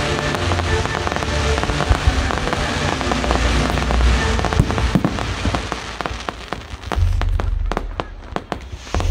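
Fireworks crackling densely, thinning in the last few seconds to separate sharp pops, with music playing that has a deep bass.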